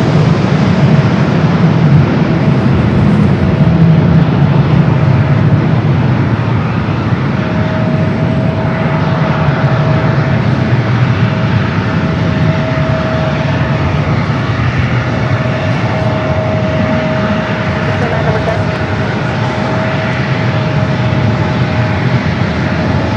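Jet airliner engines running, a loud steady rush with a thin high whine held over it, easing off a little after the first few seconds.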